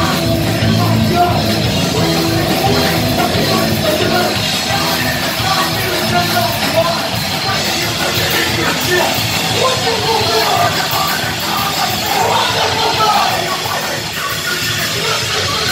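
Live rock band playing loud, with electric guitars, bass and a drum kit, and a vocalist singing into a microphone.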